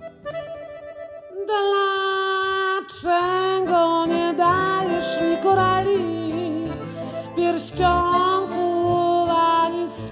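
A Pigini chromatic button accordion plays softly at first. About one and a half seconds in, a woman's voice comes in, singing long held notes with vibrato over the accordion and guitar accompaniment.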